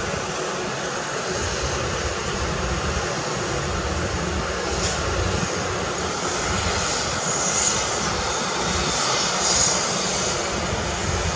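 Heavy earthmoving machinery's diesel engine running steadily, with a hiss that swells briefly a few times near the middle and end.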